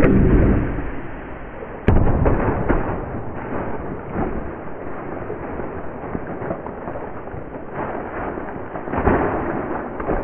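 Compound bow shot: a loud thump as the arrow is loosed and strikes a whitetail doe, then a sharp snap about two seconds in. The deer then bounds away through dry fallen leaves, with repeated crunching and rustling that swells again near the end.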